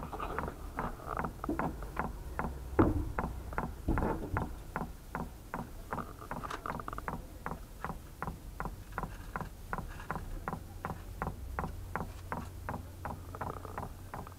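Chinese diesel heater's fuel dosing pump ticking evenly, about three clicks a second, over a steady low hum during a test run: the pump is working and feeding fuel. A single louder knock comes about three seconds in.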